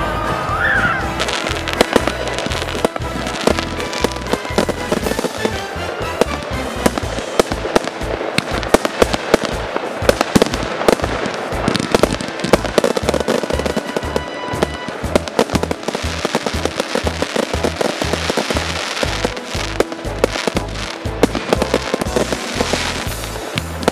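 Fireworks bursting and crackling in rapid succession, with sharp pops throughout, over music with a steady bass beat.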